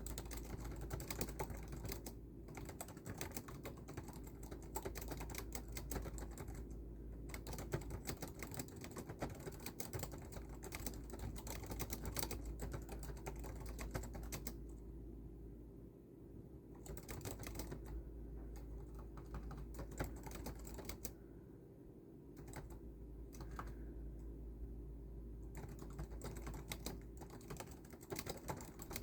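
Typing on a computer keyboard: fast runs of keystrokes broken by several pauses of a second or two, over a steady low hum.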